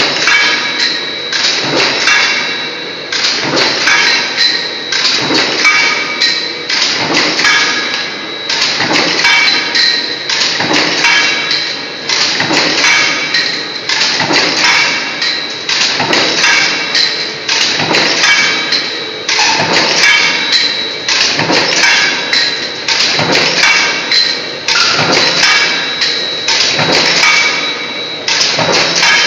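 Power stamping press punching LED caps from coil strip: a regular beat of metallic strokes, about two a second, with a steady high whine underneath.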